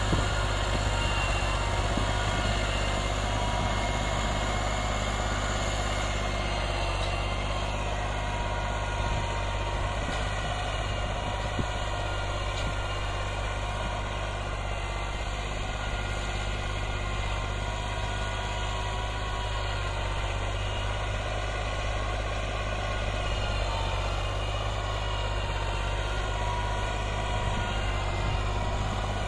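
Massey Ferguson 260 tractor's three-cylinder diesel engine running steadily under load as it pulls a five-tine chisel plough through dry soil.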